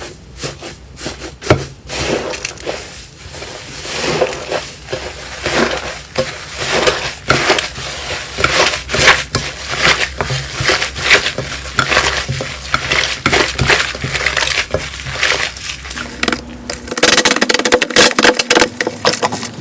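Slime being squeezed and worked by hand, giving a dense run of crackling, popping clicks. About three seconds before the end the texture changes to a denser crackle over a low steady hum.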